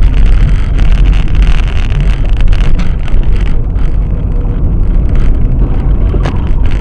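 Car driving, with a loud, steady deep rumble of road and engine noise picked up by a dash camera inside the cabin, and one short knock about six seconds in.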